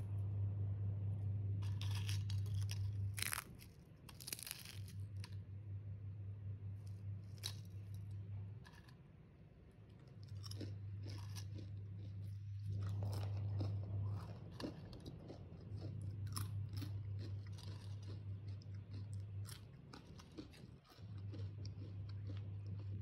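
Crisp fried green-banana chips being bitten and chewed, with repeated crackling crunches. A low hum comes and goes in stretches of a few seconds underneath.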